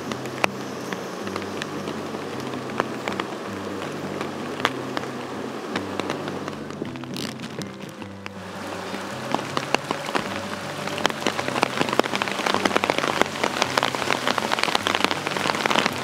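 Rain falling, with many sharp drop hits close by that grow denser and louder from about halfway through. Background music with a slow-moving bass line runs underneath.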